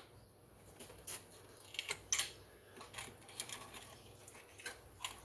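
Faint, scattered clicks and scrapes as a hand tool pries the carburetor loose from a Stihl 031AV chainsaw.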